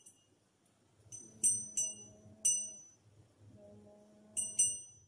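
Small hand bell rung for the evening prayer (sandhya): five bright, high strikes in two groups, each ringing briefly and dying away. A faint steady low tone sounds under each group.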